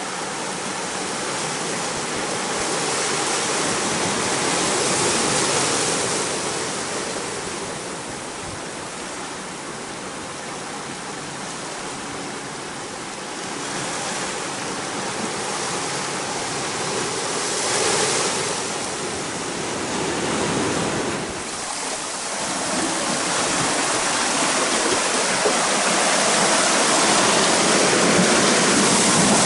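Ocean surf washing into a cove and over shoreline rocks: a steady rush of water that swells and ebbs every few seconds, growing louder near the end as water surges through a rocky gully.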